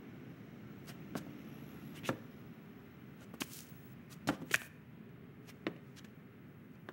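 About eight light taps and clicks at irregular intervals, sharpest a little past the middle, over a low steady hum.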